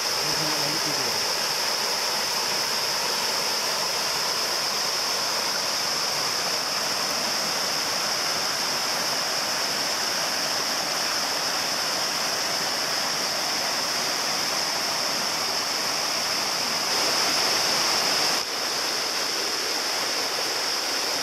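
Forest stream running over rocks and small cascades: a steady, even rush of water. It gets a little louder near the end, then drops suddenly.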